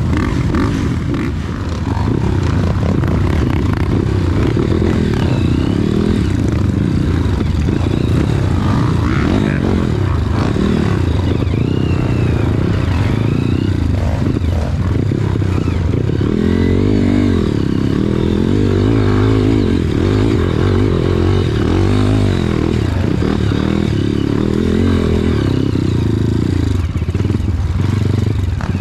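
Many trail motorcycles running and revving at once, their engine notes overlapping and rising and falling without a break.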